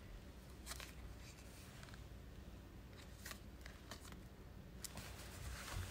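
Faint scattered ticks and rustles, about six of them, of a cardboard price tag and the clothing it hangs from being handled by fingers, over a low steady room hum.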